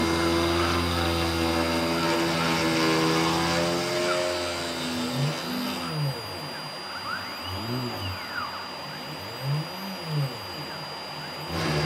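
CNC machine running: the 48 V DC spindle motor hums steadily, with a thin high whine near its 5 kHz PWM drive frequency. About four seconds in it gets quieter, and the axis motors sweep up and down in pitch every two to three seconds as they speed up and slow down. It grows louder again near the end.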